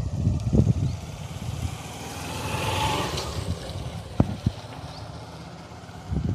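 A motor vehicle passing by, its engine noise swelling to a peak about halfway through and then fading. Low rumbling thumps come at the start, and a sharp click sounds about four seconds in.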